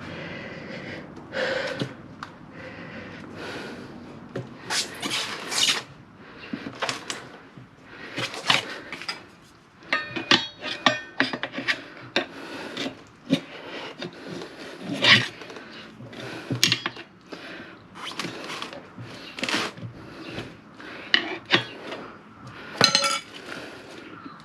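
Steel tire levers clanking and scraping against a motorcycle wheel rim as a tire is levered on by hand: a string of irregular metal knocks, some ringing briefly.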